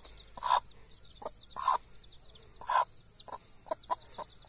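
A mother hen clucking to her brood of chicks: three longer, louder clucks about a second apart, then a run of short clucks. A continuous high, rapid peeping from the chicks runs underneath.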